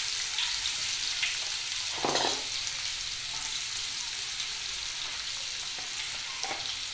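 Chopped onion sizzling in hot oil with mustard seeds and cumin in a non-stick kadhai: a steady frying hiss, with a short knock about two seconds in.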